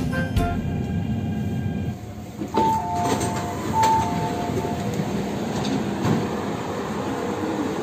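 Hong Kong MTR train and station platform noise, a steady rumble. About two and a half seconds in, a two-note electronic chime alternates high and low several times for about two seconds: the door warning signal.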